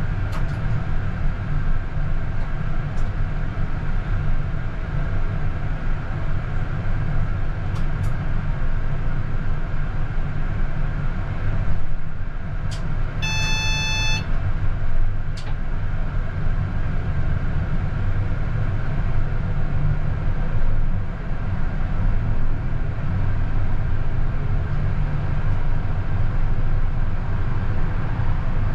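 Steady low hum and rumble inside the cab of a CAF Urbos 100 tram. Just past the middle comes a single electronic beep lasting about a second, typical of the door-closing warning at a stop.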